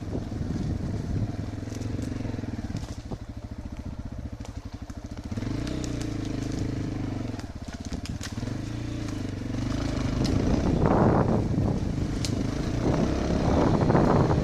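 Enduro motorcycle engine running at low revs, its pitch rising and falling with the throttle, with a slow chugging stretch a few seconds in and scattered clicks and crackles. Near the end it grows louder with wind rushing on the microphone.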